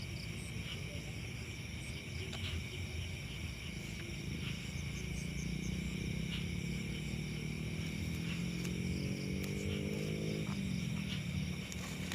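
Insects chirping steadily at night. Over them, a low droning tone builds from about four seconds in, slowly rises in pitch, then falls away about ten seconds in.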